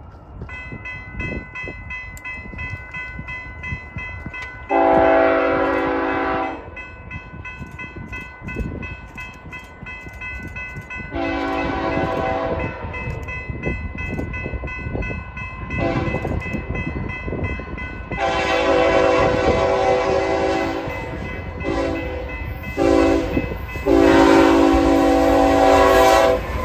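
Grade-crossing warning bell ringing with a rapid, steady beat. Over it, a freight locomotive's multi-chime horn sounds the crossing signal: two long blasts, a short one, then a long one, followed by another short blast and a final long one held as the train reaches the crossing. The rumble of the approaching locomotives builds near the end.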